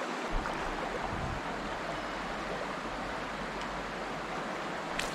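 Shallow rocky trout river flowing through a riffle: a steady rush of moving water.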